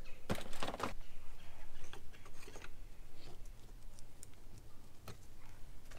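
Clicks and clattering from handling an RV shore power cord and its plug. A burst of rattling comes about half a second in, followed by scattered light clicks and knocks.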